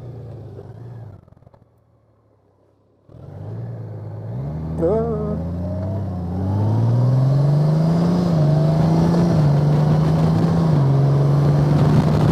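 Motorcycle engine running, dropping almost to silence for a couple of seconds. It then pulls away and accelerates, its note climbing and stepping down a few times as it shifts up through the gears. Wind rush builds as speed rises.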